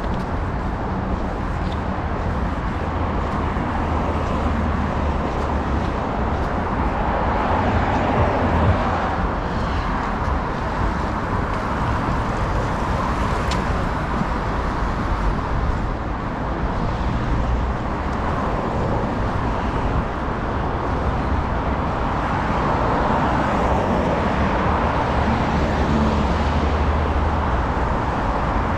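Steady traffic on a busy multi-lane city avenue: a continuous rush of cars and tyres passing, swelling a little about a third of the way in and again towards the end.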